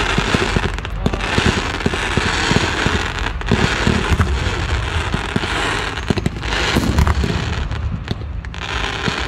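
Several ground fountain fireworks (gerbs) hissing as they spray sparks, with many small crackling pops throughout.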